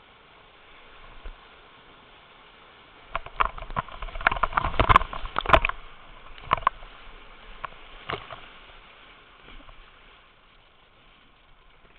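Water splashing and slapping over a whitewater kayak in a rapid, over the steady rush of the water. There is a run of loud splashes from about three to six seconds in, then a few more before it settles.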